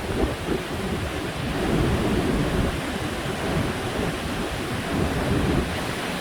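Typhoon-driven ocean waves crashing and surging, with gale-force wind rumbling on the microphone.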